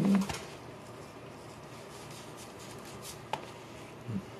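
A feral cat's low, falling yowl cuts off just after the start. Then comes quiet rustling and scraping from handling in a small plastic box, with a single sharp click a little past three seconds in.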